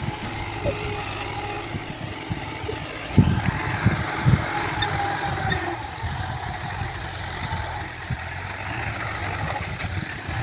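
Tractor engine running steadily under load as it pulls a tine cultivator through ploughed soil, a little louder toward the end as it comes closer. A few low thumps on the microphone about three to four seconds in.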